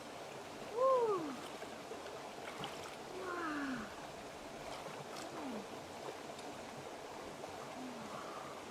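An animal calling four times, each call a short note sliding downward in pitch. The first, about a second in, is the loudest, and the rest grow fainter. Under them is the steady wash of flowing river water.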